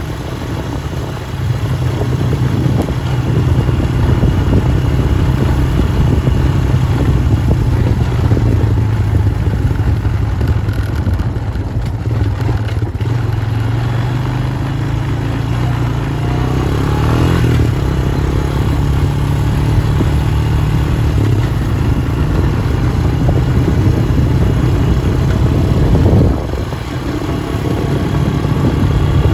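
Small off-road farm vehicle's engine running steadily as it drives over rough pasture. It swells briefly past the middle, drops off about three seconds before the end, then picks up again.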